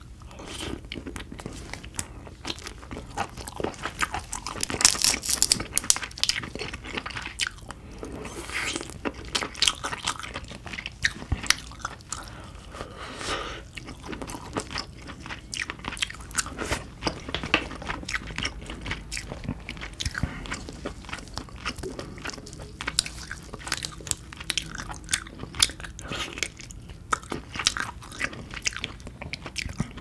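Close-miked eating of crab: shell and legs crunching and cracking while the meat is bitten and chewed, a dense run of sharp crackles and clicks with a louder flurry about five seconds in.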